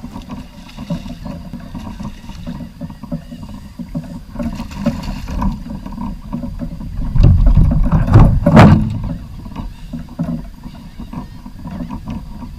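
Handling noise and water sounds on a kayak while a redfish is fought and landed. There is a steady low rumble of knocks against the hull, and a loud thump about eight and a half seconds in.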